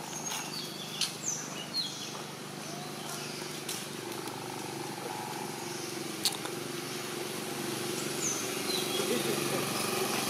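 A vehicle engine running steadily in the background, growing louder near the end. A few short, high, falling chirps and several sharp clicks sound over it.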